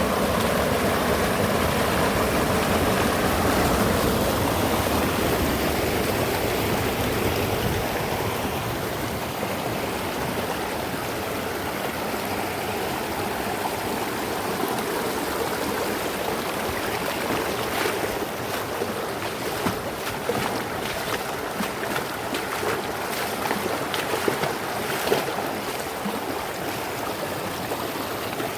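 Mountain river running over rocks: a steady rush of flowing water, with sharper close splashes and drips over the second half.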